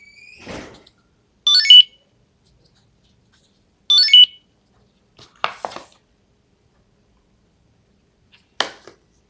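Chipolo ONE Point Bluetooth tracker sounding two short electronic beep-chimes about two and a half seconds apart, as its button is pressed while it is held to the phone for pairing. A few light handling clicks follow.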